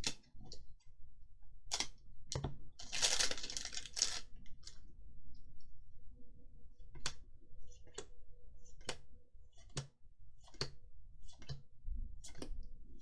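Trading cards being handled and flicked over one at a time, a sharp snap about once a second through the second half, with a short rustle of handling about three seconds in.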